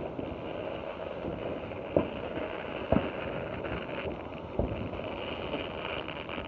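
Ground firework spraying sparks with a steady hiss, broken by sharp pops about two, three and four and a half seconds in.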